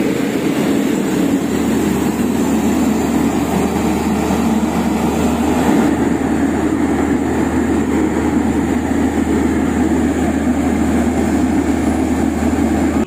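Diesel engines of a Plasser & Theurer track maintenance consist, a PBR-400U-RS ballast regulator with an MTT tamper, running loudly close by as a steady heavy drone.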